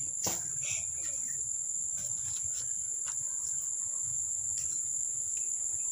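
Steady, high-pitched chorus of insects trilling continuously, with a few faint light ticks.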